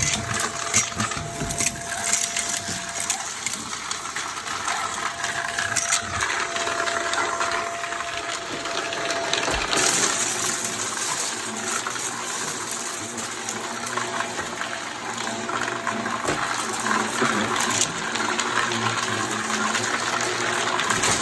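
Vacuum cleaner running steadily, with a few sharp clicks and rattles through it.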